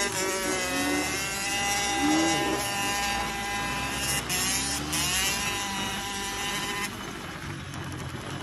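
Yamaha DT two-stroke dirt bike engine running under way, revving up and down again and again, over a steady high engine note. The steady note cuts off about seven seconds in, leaving quieter revving.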